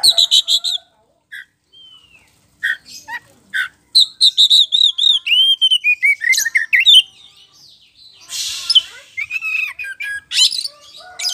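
Oriental magpie-robin of the white-bellied 'poci' type singing loudly. Its varied song of clear whistles opens with a quick run of repeated high notes. A few seconds later comes a string of repeated notes that falls steadily in pitch, followed by harsher, rasping notes mixed with more whistles.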